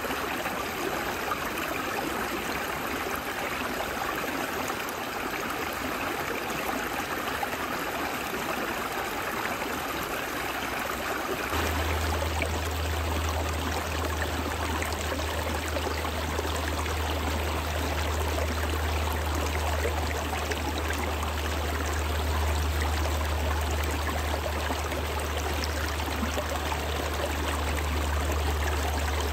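A small, partly frozen woodland stream flowing steadily over stones between shelves of ice, a continuous rushing and babbling of meltwater. About ten seconds in the sound changes and a low steady rumble joins the flow.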